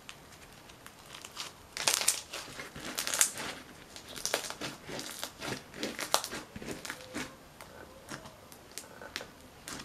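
Pink crackle slime with beads being stretched, squeezed and pressed by hand, giving many irregular crackles, clicks and pops, which grow louder and denser after the first second and a half.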